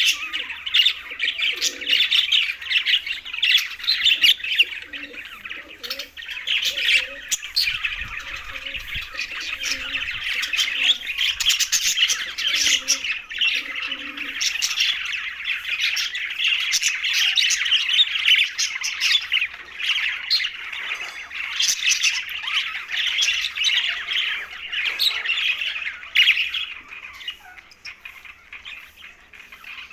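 A group of budgerigars chattering and chirping, many calls overlapping into a continuous warble. The chatter thins out and grows quieter in the last few seconds.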